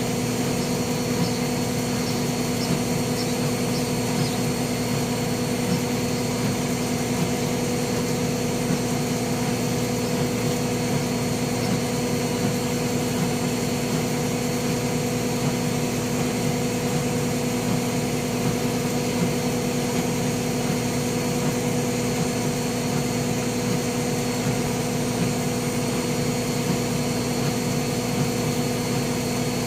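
Bauknecht WA 1460 Sports front-loading washing machine spinning steadily, its motor giving one constant hum with a higher tone above it and no change in speed.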